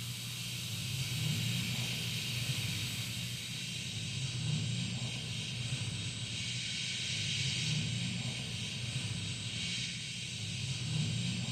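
Breathy, pitchless hissing from several voices, with a rough low rumble beneath, swelling and fading in slow waves every few seconds.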